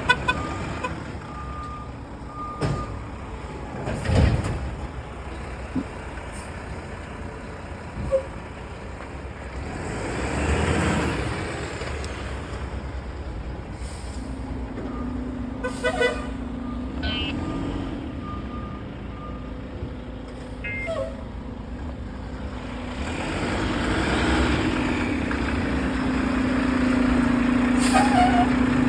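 Garbage truck working a residential street: its engine runs with a steady hum, with several sharp knocks and two rushing swells of noise. Short electronic beeps come in small groups.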